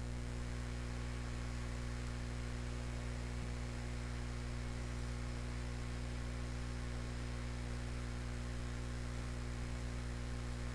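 Steady electrical mains hum with a faint hiss, unchanging throughout: the background noise of the recording, with nothing else sounding.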